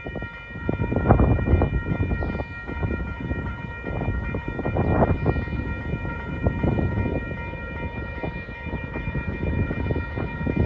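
Wind gusting on the microphone over the distant sound of a pair of DJ class diesel-electric locomotives approaching, with a steady high-pitched whine of several tones throughout.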